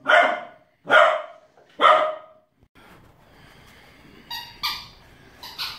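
Cocker spaniel puppy barking: three loud, sharp barks about a second apart, then a few quieter, higher-pitched squeaky yips near the end.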